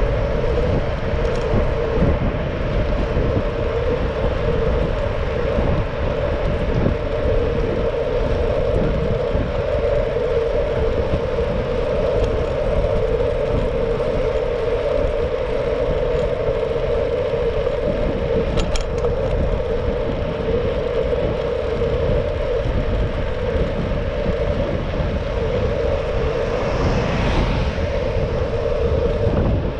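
Riding noise of a Brompton folding bicycle on a road: wind and road rumble with a steady hum. A brief sharp click comes about two-thirds through, and a short swell of hiss near the end.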